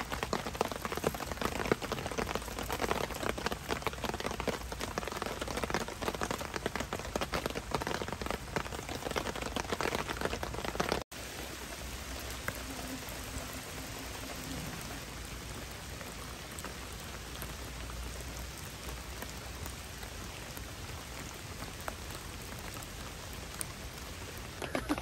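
Heavy rain falling steadily. For about the first eleven seconds it is close and dense, with many individual drops striking; after an abrupt cut it becomes a softer, even hiss of rain.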